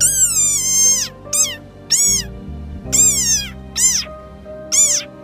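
Desert rain frog squeaking: six high-pitched squeals, each rising then falling in pitch, the first about a second long and the rest shorter. This is the frog's defensive call when it feels threatened. Background music plays underneath.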